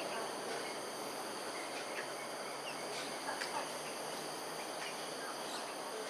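A steady, high insect drone, with scattered short, high chirps every second or so.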